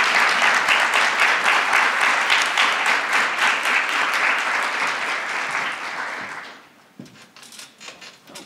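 Audience applauding, a dense patter of many hands clapping, which dies away about six and a half seconds in.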